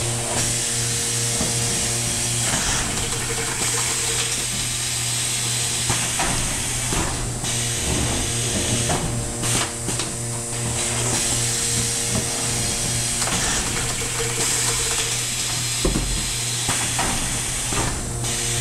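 Automatic case-erecting packaging machine running on test: a steady electric hum and whine under a constant air hiss, with irregular mechanical knocks and short bursts of air as it cycles.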